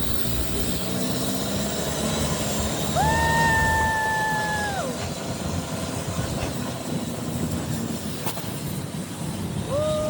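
Boat engine running steadily on a boat ride through a floating market. Over it, a long, high, held tone about three seconds in falls away after two seconds, and a similar falling tone comes near the end.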